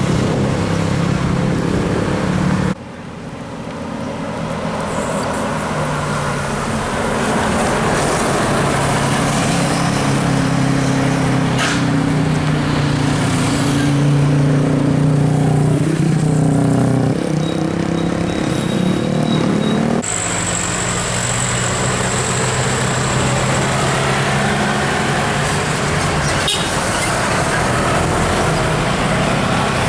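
Road traffic on an uphill bend, led by the engines of large vehicles climbing past. Their steady hum shifts in pitch midway, and the sound changes abruptly twice, about three seconds in and again about twenty seconds in.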